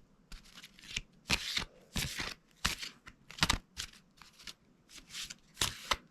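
A deck of oracle cards being hand-shuffled lengthways: short, irregular riffling rustles of the cards, about one to two a second.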